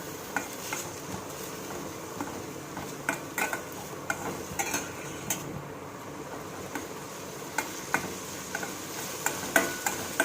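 Sliced small onions, garlic and ginger sizzling in coconut oil in a pan as they are sautéed and stirred. A steady low sizzle, with the spoon clicking and scraping against the pan about once or twice a second.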